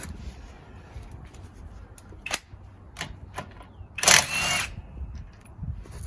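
Hand tools at work on a car wheel seized onto its hub: a few sharp metal clicks, then a loud scraping squeal lasting about half a second, a little past halfway.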